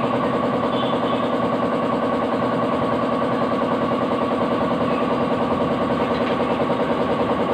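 A motor-driven machine running steadily, humming with a fast, even pulse.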